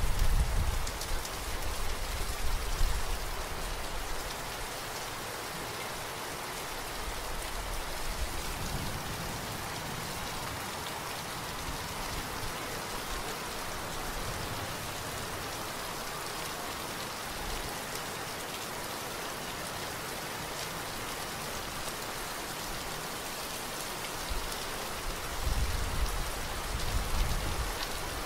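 Steady rain falling, an even hiss throughout. Low rumbles come in the first few seconds and again near the end.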